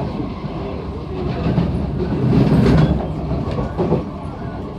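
C151A metro train running on the line, heard from inside the carriage: a steady rumble of wheels on rail that grows louder about two to three seconds in, with a few short knocks near the end.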